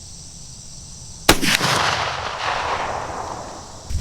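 A single muzzleloader rifle shot about a second in, followed by a long rolling report that fades away over a couple of seconds. It is the gun's second shot, which landed near the bullseye after a poor first one.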